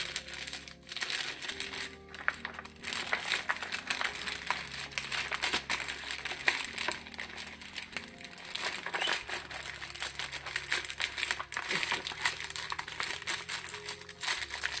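Clear plastic packaging bag crinkling and rustling as a cross-stitch kit is worked back into it by hand, over soft background music.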